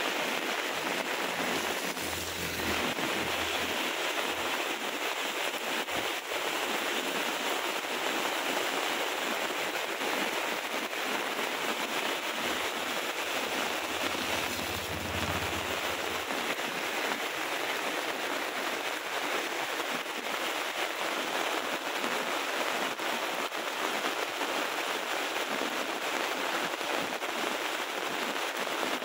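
Heavy rain falling steadily, a dense, even hiss of downpour.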